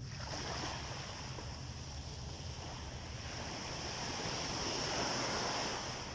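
Sea waves breaking and washing up a beach. A surge comes in at the start, grows to its loudest about five seconds in, then eases off, over a steady low rumble underneath.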